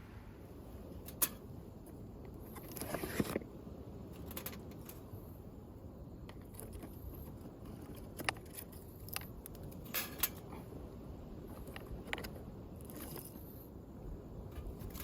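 Scattered light clicks and clinks with a short rustle about three seconds in: hands handling the metal parts of a folding stainless-steel camp stove.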